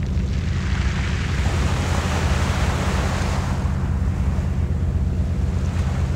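Small waves washing up and drawing back over a pebble beach: one surge of surf builds, peaks and fades over about four seconds. Under it runs a steady low rumble.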